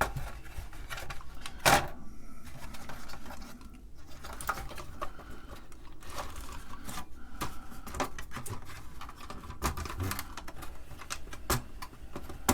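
Irregular clicks and knocks of a TRS-80 Model I's circuit board and plastic case being handled as the board is worked up out of the case, with one sharper knock about two seconds in.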